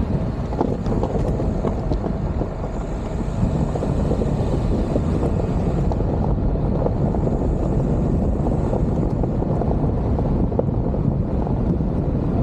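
Wind buffeting the microphone of a camera mounted outside a moving car, over the low rumble of tyres on a loose gravel road. It grows a little louder over the first few seconds.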